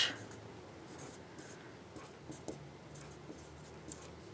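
Pen scratching faintly on the paper label on the back of a canvas while writing, in short strokes.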